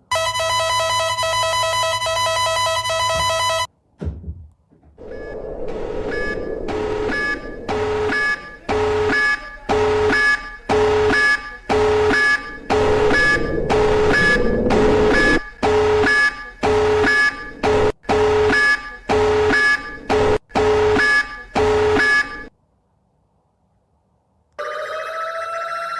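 Electronic emergency alert alarm tones: a steady harsh tone for about three and a half seconds, then a pulsing alarm beeping a little over once a second for about seventeen seconds, and after a short pause a new tone that rises briefly and then holds.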